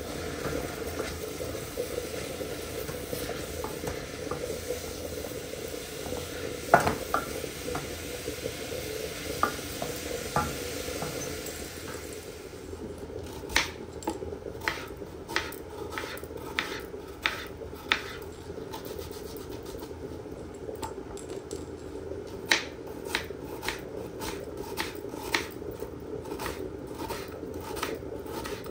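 Chopped mushrooms sizzling in a stainless steel pot while a wooden spoon stirs them, with a few knocks of the spoon against the pot. About twelve seconds in, this gives way to a knife chopping an onion on a cutting board: sharp, regular taps about every half second, with a short break partway through.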